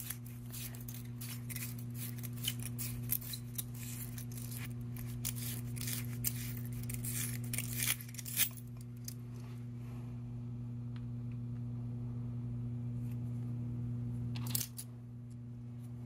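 A flame sensor cleaner's abrasive tube scraping back and forth along the metal rod of a gas furnace flame sensor, cleaning the rod. The scratching is dense and rapid for the first nine seconds or so, then turns to sparse scratches, with one short scrape near the end. A steady low hum runs underneath.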